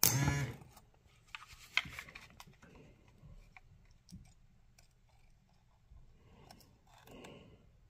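RV entry-step motor and gearbox being test-run on the bench after a repair, turning its crank linkage with faint clicking and clattering from the gears and linkage. A brief louder sound at the very start.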